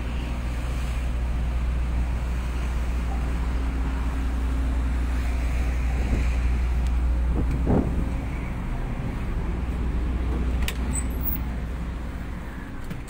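Steady low rumble of a ship's engines and machinery, heard out on deck with wind on the microphone; it eases off about two-thirds of the way through, with a single knock just before.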